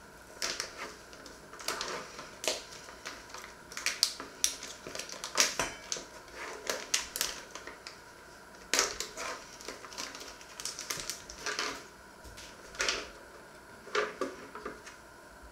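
A thin plastic food packet crinkling and crackling as it is handled, opened and emptied, in short irregular rustles with brief pauses between.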